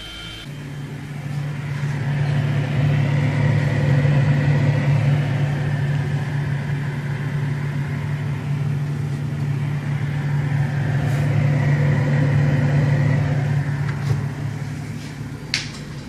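Refrigerator running, a steady low hum from its compressor, with a short click near the end.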